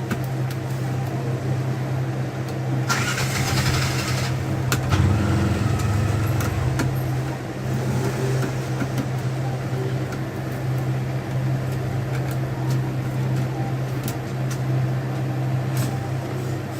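A steady low engine hum, with scattered small clicks and a short hiss about three seconds in.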